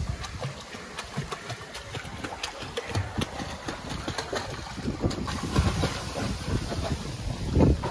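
Pool water splashing and sloshing as a golden retriever paddles and is held in the water, with irregular sharp splashes. A low rumble, typical of wind on the microphone, grows stronger in the second half.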